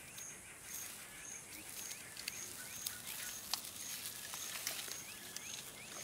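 Bush ambience with an insect chirping in a steady rhythm, about two short high chirps a second, joined in the middle by quicker, fainter rising chirps. A few scattered soft clicks sound over it.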